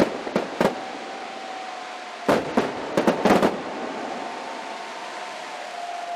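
Fireworks display: aerial shells bursting with sharp bangs, three in the first second and a quick cluster of about five some two and a half seconds in, then a steady hiss and crackle that slowly fades.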